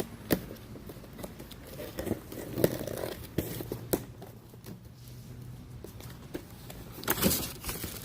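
Scattered clicks, knocks and scrapes of a new plastic tail lamp assembly being handled, with the loudest cluster of knocks about seven seconds in.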